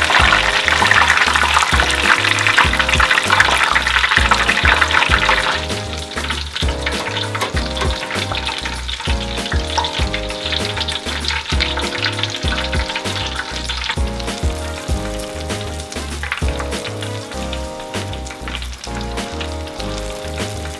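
Panko-breaded shrimp deep-frying in hot oil at about 375 °F, a loud steady sizzle that drops sharply about five seconds in to a fainter crackle. Background music with a steady bass line runs under it.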